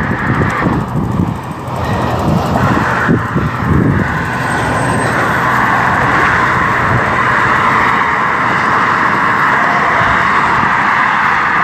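Steady noise of car traffic on the causeway road alongside the bike path, with uneven low rumbling over the first four seconds.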